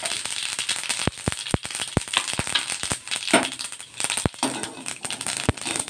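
Mustard seeds and urad dal sizzling in hot oil in a wok during tempering, the mustard seeds spluttering with many sharp, irregular pops.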